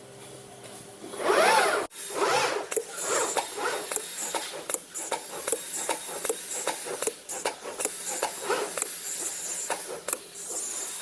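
CNC glass cutting machine running: a motor whine that rises and falls several times as the cutting head speeds up and slows down, over an irregular rapid crackle of sharp clicks.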